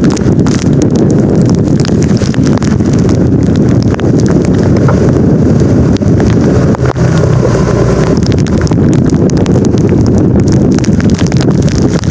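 Storm wind buffeting the microphone as a steady heavy rumble, with heavy rain and irregular sharp taps of raindrops hitting the device.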